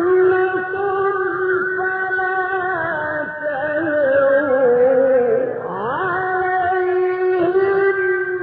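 Male reciter chanting the Quran in the melodic mujawwad style, holding long notes. Midway the voice winds slowly downward in an ornamented run, then sweeps back up quickly and holds a high note again.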